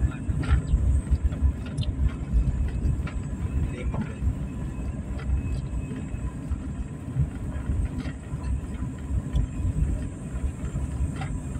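Car driving on an unpaved gravel road, heard from inside the cabin: a steady, uneven low rumble from the tyres on the rough surface, with scattered small clicks and rattles.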